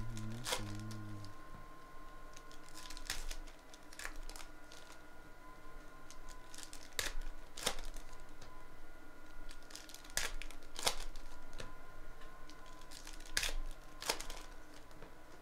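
Foil wrappers of Panini NBA Hoops card packs crinkling and tearing as they are handled and ripped open by hand, in sharp crackles every second or few, often two close together.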